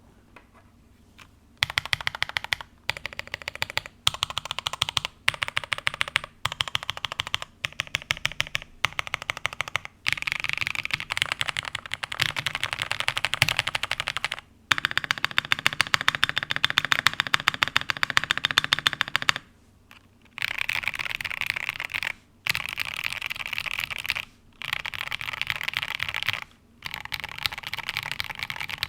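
Typing on an Iterkeebs TINT60 custom mechanical keyboard: fast runs of keystroke clicks in bursts, broken by short pauses, starting about a second and a half in.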